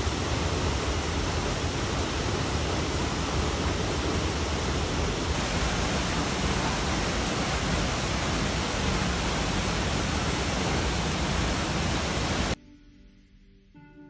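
Hemlock Falls, a tall waterfall plunging into its plunge pool, giving a steady rush of falling water. About twelve and a half seconds in it cuts off suddenly to quiet background music.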